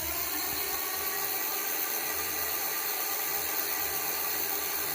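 Pedal-assist e-bike's electric motor running steadily on its high power setting, a continuous whine.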